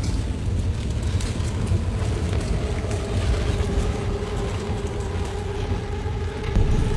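Steady low rumble of a car burning in a confined tunnel. A sustained droning tone with overtones comes in about two and a half seconds in and holds.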